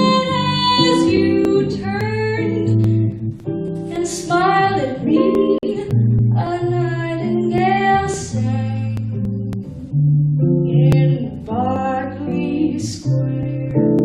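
A woman singing a slow jazz ballad, with held notes and vibrato, accompanied by a plucked guitar playing chords and a bass line.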